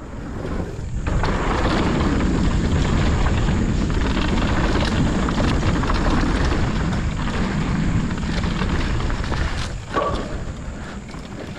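Heavy wind buffeting on the microphone together with the rumble of knobby tyres on a dirt trail as a mountain bike rides downhill fast; the noise eases about ten seconds in.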